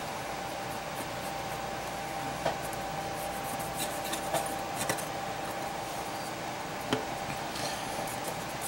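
Steady background hiss with a faint constant tone, broken by a few light clicks and rubbing sounds.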